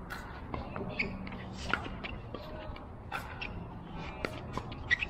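Pickleball rally: paddles hitting the hard plastic ball, a series of sharp pops about one to two seconds apart, starting with the serve, the loudest near the end.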